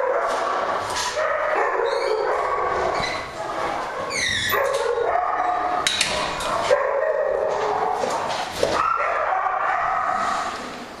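A chorus of many kennelled dogs barking, yipping and whining over one another without a break at feeding time, with quick high yelps about two seconds in and again near four and a half seconds.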